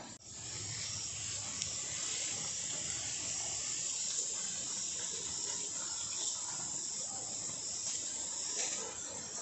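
Steady high-pitched outdoor hiss, with faint rustling as sheets of cloth and plastic are unfolded and handled.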